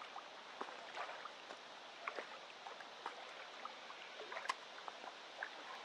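Quiet river-bank ambience: a soft, steady wash of river water with scattered faint ticks and clicks, one sharper click about four and a half seconds in.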